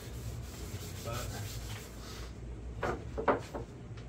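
A gloved hand with a rag rubbing wood stain onto the bare wooden sides of a box, an even scrubbing sound with two louder strokes about three seconds in.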